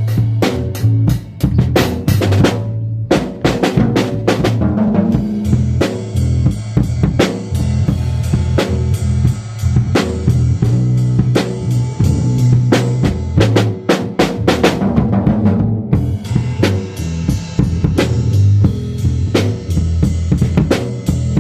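Music led by a drum kit playing a busy beat of kick, snare and cymbals over a bass line. The higher drums and cymbals drop out briefly twice.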